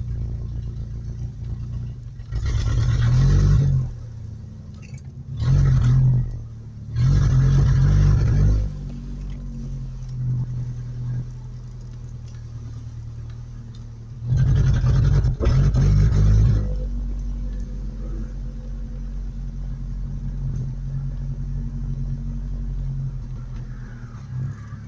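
Truck engine running with a loud exhaust, revved in four short bursts over a steady idle; the owners blame its muffler for causing back pressure.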